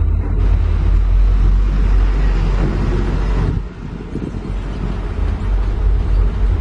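Heavy diesel engine running with a deep, steady rumble, which drops in loudness about three and a half seconds in.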